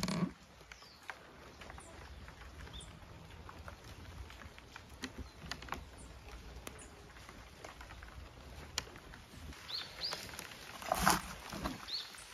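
Light knocks and clicks of the camper shell's door being handled: a thump right at the start and a louder knock about eleven seconds in. Faint bird chirps sound now and then over a quiet outdoor background.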